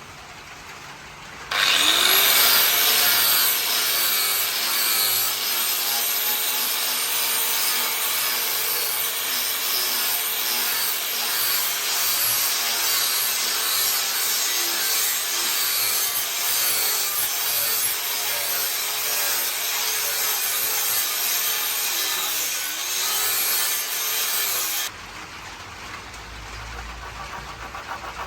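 An electric power tool grinding against material, a steady rasping hiss with a motor tone. It cuts in sharply about a second and a half in, its pitch sags briefly near the end, and it stops abruptly a few seconds before the end.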